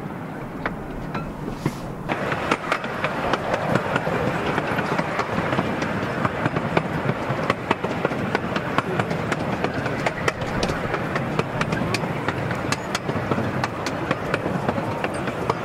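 Open passenger carriages of a 12¼-inch-gauge miniature railway running along the track: a steady rumble and rushing noise with many sharp clicks and rattles from the wheels and coaches, getting louder about two seconds in.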